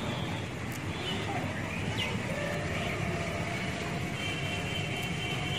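Steady low rumbling hum of outdoor background noise, with a faint high steady tone coming in about four seconds in.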